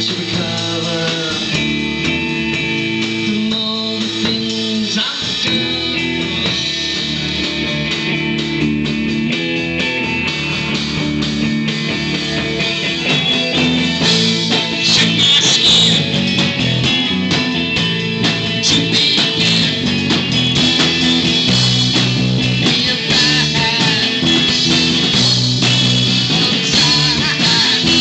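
Live rock band playing loudly: electric guitars over a drum kit, the music building a little louder from about halfway through.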